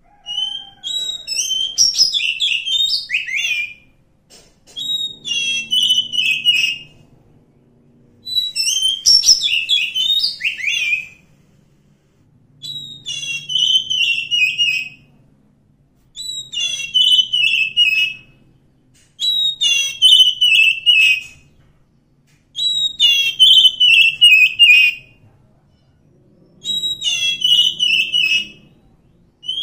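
Oriental magpie-robin singing: eight loud whistled phrases of two to three seconds each, separated by short pauses, with many notes falling in pitch.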